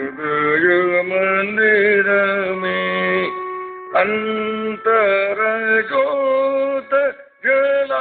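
A man singing a Hindi devotional bhajan, holding long, wavering notes in slow phrases, with short breaks about three and a half and seven seconds in.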